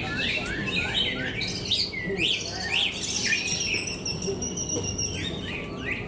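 Caged cucak ijo (green leafbirds) singing: a fast run of short sweeping chirps, with a thin high whistle held for about two seconds midway.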